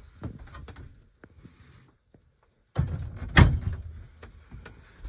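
Knocks, clicks and handling noise of someone climbing into a small wooden truck camper, with a loud thump about three and a half seconds in. The sound drops away briefly about two seconds in.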